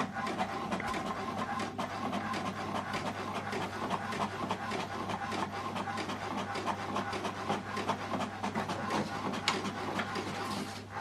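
HP Deskjet 4200-series inkjet printer printing a page: a steady mechanical hum with many small clicks and ticks as the print carriage and paper feed work.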